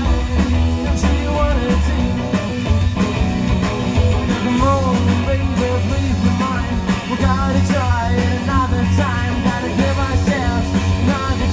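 Live rock and roll band playing: upright double bass, electric guitar and drums, with pitched lines bending up and down over a steady bass line.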